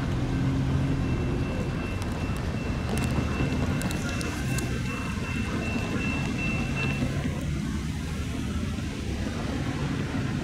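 Freight train rolling slowly away, with road traffic mixed in: a steady low rumble, plus a thin steady high squeal that stops about seven seconds in.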